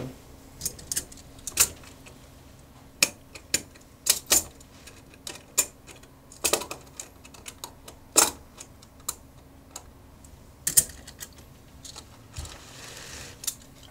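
Silver coins clicking against one another in sharp, irregular clinks as they are counted and stacked by hand.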